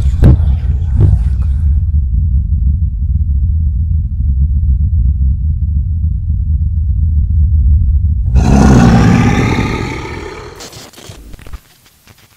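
Horror-film sound design: a loud, deep rumbling drone, then about eight seconds in a sudden harsh burst with wavering pitch that fades over about two seconds and drops away.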